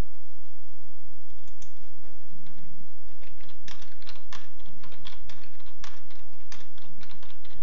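Typing on a computer keyboard: a few scattered keystrokes about a second and a half in, then a quick run of keystrokes from about three and a half seconds in as a sentence is typed, over a steady low hum.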